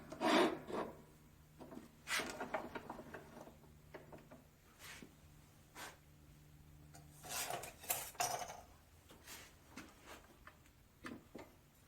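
Scattered clinks, knocks and scrapes of small steel pieces being handled and set down on a metal-cutting bandsaw and bench. A faint steady hum stops about seven seconds in.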